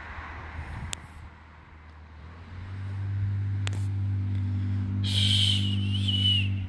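An engine humming steadily, swelling in over a couple of seconds and cutting off at the end, with a higher wavering whine and hiss for about a second and a half near the end.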